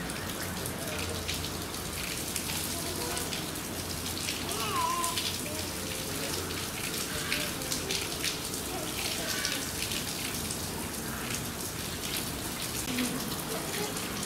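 Thin stream of water from a spout in a rock wall splashing into a shallow pool, a steady patter of small splashes.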